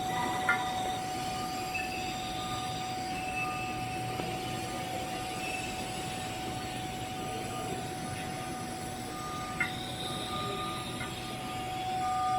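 TIG welding arc burning steadily: a hiss with a constant high whine. Two sharp clicks come about half a second in and near the end.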